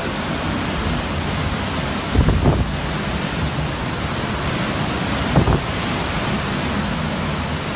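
Hurricane-force wind and driving rain blowing as a loud, steady rush of noise, buffeting the microphone, with two stronger gusts about two seconds in and again about five seconds in.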